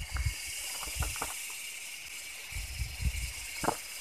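A steady high-pitched hiss of background noise, with scattered clicks and a few low thumps from fishing tackle being handled close by. The thumps bunch up in the second half.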